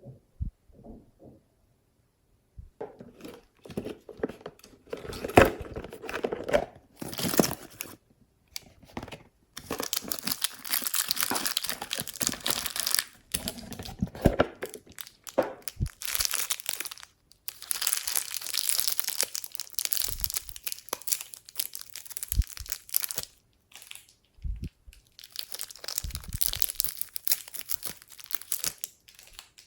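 Glossy slime being squished, stretched and kneaded by hand, giving wet crackling and popping sounds in stretches of a few seconds with short pauses between.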